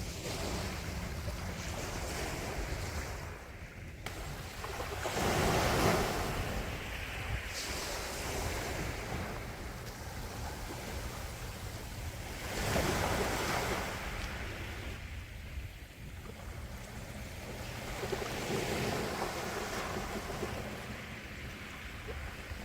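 Sea waves washing onto a shore, each swelling and fading, about every six or seven seconds, over a steady low rumble of wind on the microphone.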